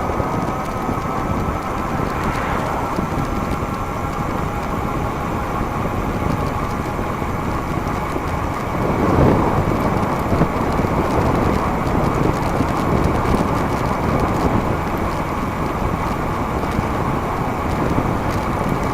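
Wind rushing over the microphone and tyre noise from a DIY e-bike ridden at speed, with a thin steady whine from its electric motor underneath. The rush swells briefly about halfway through.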